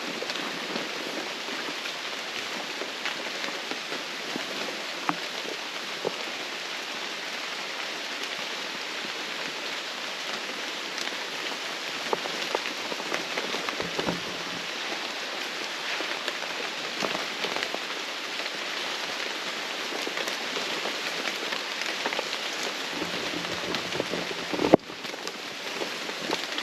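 Steady rain falling in the rainforest, a dense patter of many individual drops. There is one sharp click near the end.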